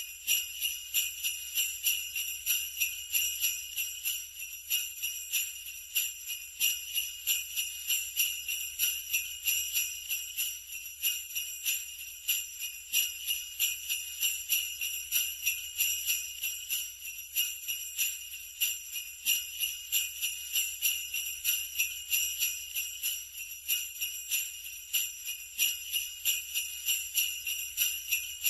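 Sleigh bells jingling continuously in a steady shaken rhythm, a few pulses a second.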